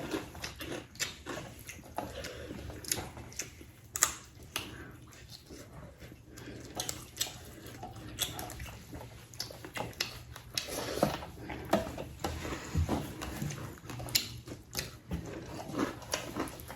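Mouth sounds of eating chicken and rice: chewing and lip smacking, with irregular small clicks and taps.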